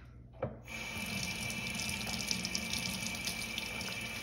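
Kitchen faucet turned on under a second in, its stream running steadily over a plastic bag and into a stainless steel sink. A short knock comes just before the water starts.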